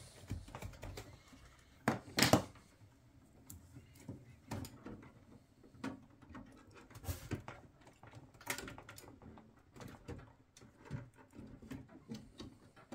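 Scattered clicks, knocks and rustles of power-supply cables and plastic connectors being handled inside a desktop PC tower case, the loudest a sharp pair of knocks about two seconds in.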